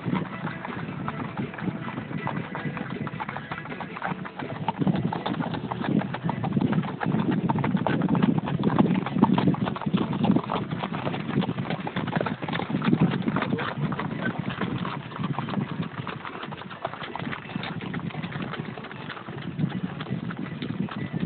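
Hoofbeats of a Standardbred stallion moving at a singlefoot, the even four-beat racking gait, on a dirt path. They are loudest as the horse passes close by near the middle.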